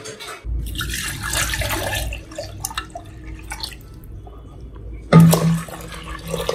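Water running and splashing, as from a kitchen tap into a sink, loudest for the first couple of seconds and then quieter. About five seconds in there is a sudden loud clatter.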